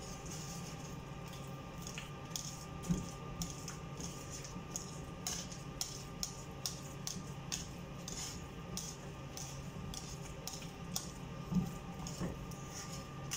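Wire whisk clicking and scraping against a pan, stirring browned flour with hot water into asida dough, in irregular strokes about one or two a second.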